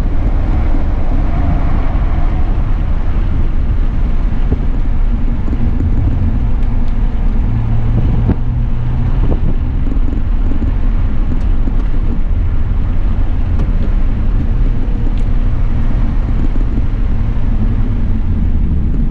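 Cabin noise of a 2003 Nissan Maxima being driven: the 3.5-litre V6 engine running under way together with a steady rumble of road noise, the engine note shifting as the throttle changes.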